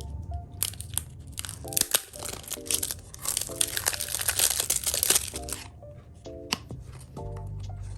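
Packaging being crinkled and torn open, with scattered crackles and then a dense rustling burst from about three and a half to nearly six seconds in, over background music with a light repeating melody.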